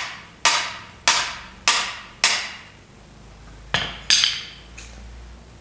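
Hammer blows on a cam bearing removal tool, driving worn cam bearings out of a Vortec 350 V8 block: four evenly spaced ringing metal strikes, a little under two a second, then a pause and two or three more.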